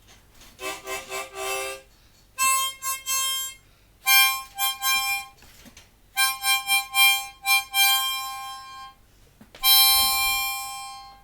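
Wind instrument played in five short phrases of held notes and chords, with brief pauses between.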